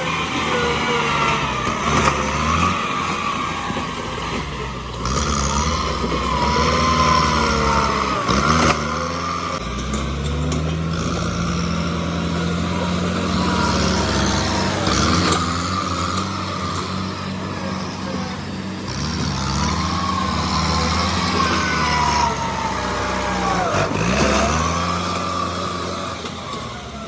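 Bulldozer's diesel engine running under changing load, its pitch rising and falling again and again, with wavering high squeals over it.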